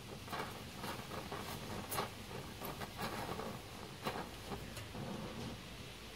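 Gas welding torch flame hissing steadily on a motorcycle silencer, with irregular sharp crackles and snaps as the filler rod melts into the joint and throws sparks.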